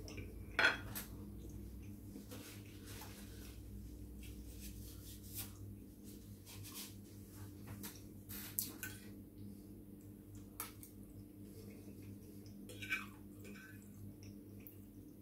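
Metal fork clinking and scraping against a plate as pasta is picked up, in scattered short clicks, the loudest about a second in, under a faint steady low hum.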